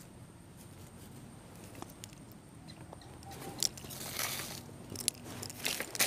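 Dry leaf litter on the forest floor crunching and rustling, with scattered small clicks of twigs and a louder rustle about four seconds in and again near the end.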